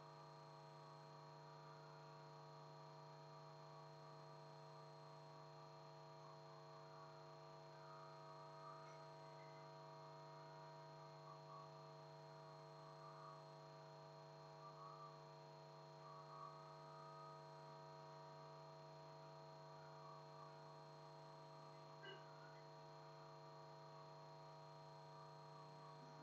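Near silence: a faint, steady electrical hum, a low drone with several higher steady tones over it.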